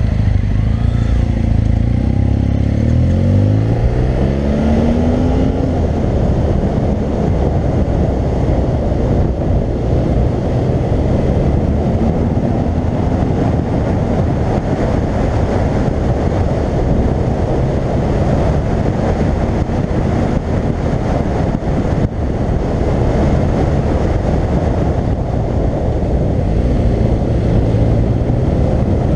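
BMW R1200GS boxer-twin engine pulling away, its pitch rising over the first few seconds. After that, a steady rush of riding wind on the helmet-mounted microphone covers the engine note underneath.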